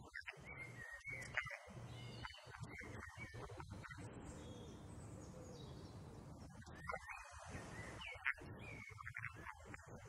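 Woodland birds singing: short chirps and whistles over a low background hum, with the sound cutting out in several brief gaps.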